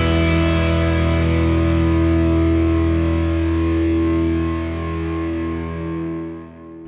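Background rock music: a distorted electric guitar chord held and left ringing, fading away near the end.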